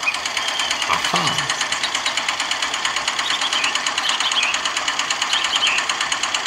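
Small electric motor and gearing of a miniature homemade concrete mixer turning its drum, a steady fast buzz.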